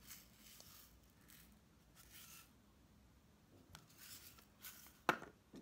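Small metal tea tins handled by hand: faint rustling and scraping of fingers on the tins as they are turned over, then a sharp tap about five seconds in.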